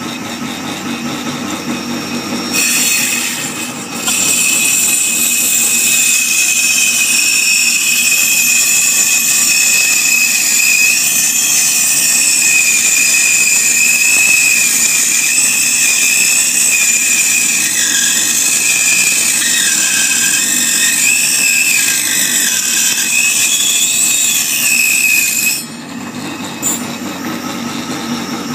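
A machine running with a steady high-pitched whine, with its pitch wavering slightly. It starts a few seconds in and cuts off a few seconds before the end.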